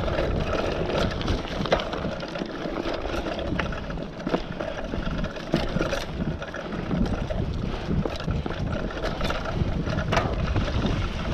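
Mountain bike rolling fast down a leaf-littered dirt singletrack: a steady rumble of tyres on dirt and leaves with the bike rattling, sharp knocks over bumps a few times, and wind buffeting the microphone.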